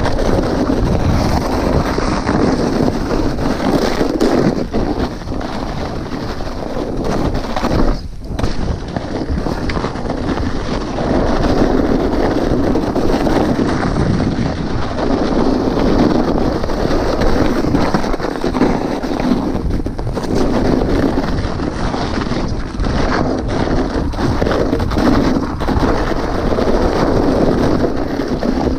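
Mountain bike rolling fast down a snow-covered dirt trail: steady rush of wind on the microphone mixed with tyre noise over the snow, briefly easing off about eight seconds in and again near twenty seconds.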